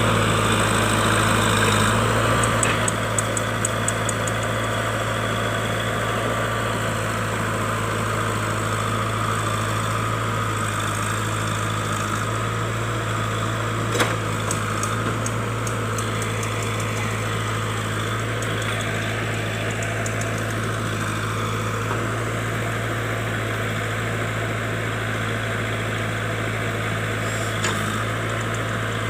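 JCB backhoe loader's diesel engine running steadily, with one short sharp click about halfway through.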